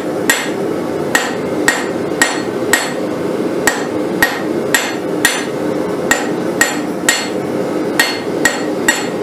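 Hand hammer striking red-hot steel on an anvil, about two blows a second, each with a short metallic ring, drawing a taper on the end of an old bolt.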